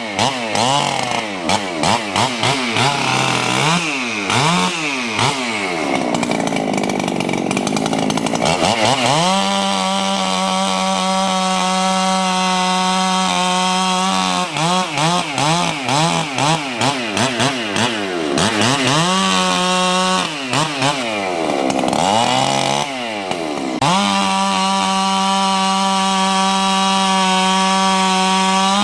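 Ported Husqvarna 395XP two-stroke chainsaw revving up and dropping back several times, then held at full throttle for stretches of several seconds.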